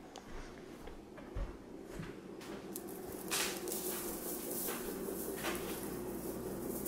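Footsteps and handling noises from a hand-held camera carried through rooms: a soft thump about a second and a half in, then brushing and scraping sounds. A steady low hum comes up about halfway through.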